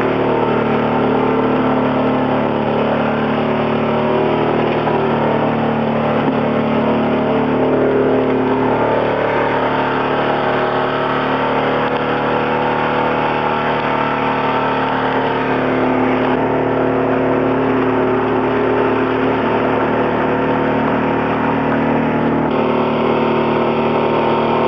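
A boat's engine running steadily under a loud rush of wind and water.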